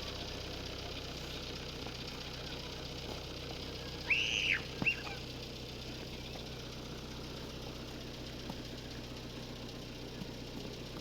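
A steady low engine hum, like a motor idling. About four seconds in come two brief high-pitched calls, the first rising and falling, the second shorter.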